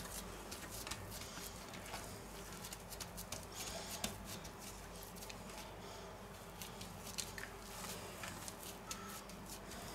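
Faint soft pats and small clicks of gloved hands pressing minced pork into moulded rib forms, with a scoop of mince from a steel bowl near the end.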